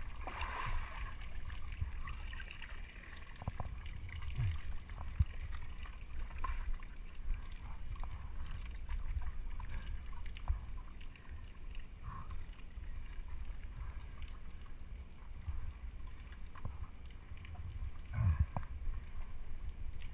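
Steady low wind rumble on a GoPro's microphone, with scattered knocks and clicks from a climber's gloved hands and clipped gear against the rock and steel cable of a via ferrata, and a few brief louder rustles.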